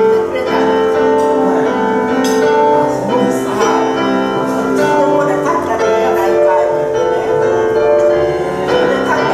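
Grand piano played in a slow improvisation, held chords ringing and changing about every second.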